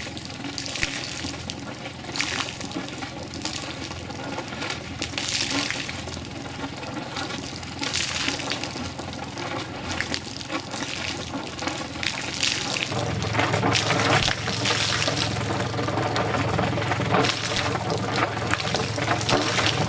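Newly installed Vetus M3.29 three-cylinder marine diesel running steadily as it is put into service, heard from outside the hull. Its cooling water gushes and splashes from an outlet in the hull side onto the ground. The engine hum gets louder about two-thirds of the way through.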